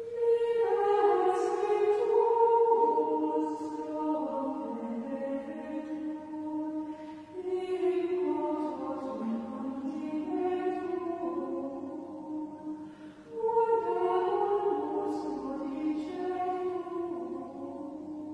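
Choir of Benedictine nuns singing Gregorian chant unaccompanied, women's voices in unison, in three phrases with short breaks between them.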